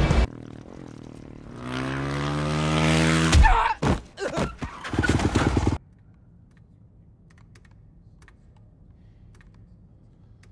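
Film sound effects: a rising mechanical whir that ends in a loud clunk about three seconds in, followed by a few sharp knocks and clicks. After that there is only a low hum with faint scattered ticks.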